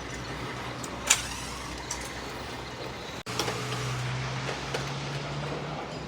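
Construction-site background noise with a single sharp knock about a second in. After a brief cut, a steady low motor-like hum sets in and fades out near the end.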